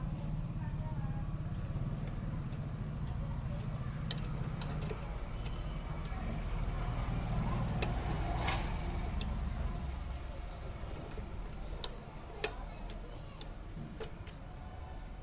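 Scooter engine running steadily, with scattered light clicks.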